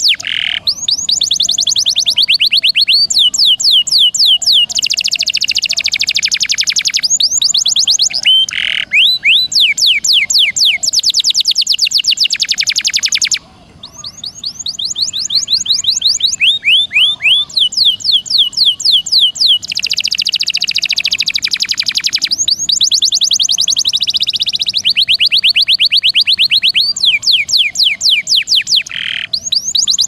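Domestic canary singing long rolls and trills of rapid, repeated high downward-sweeping notes. The phrases change speed and pitch one after another, with a brief break about 13 seconds in.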